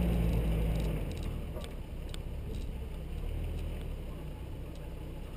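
Nissan GU Patrol's TB45 4.5-litre straight-six petrol engine pulling the 4x4 slowly over a rough dirt track. The engine note drops about a second in as the throttle eases off, and a few light knocks come through over the steady rumble.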